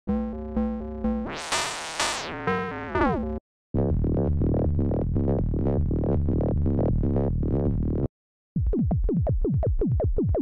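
Analog synthesizer loops from a Behringer CAT, played back one after another with short gaps between them. First comes a repeating note pattern under a noise sweep that rises and falls. Then a fast pulsing buzz, and last a run of quick downward-falling blips, about five a second.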